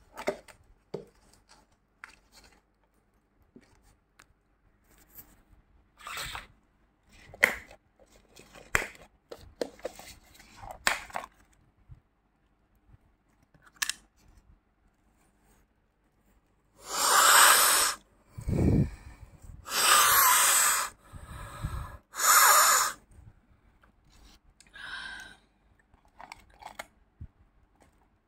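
Plastic containers of mothballs being handled: scattered clicks and taps of lids and tubs, then, about two thirds of the way in, four loud rasping, crunching noises of about a second each, with a few quieter ones after.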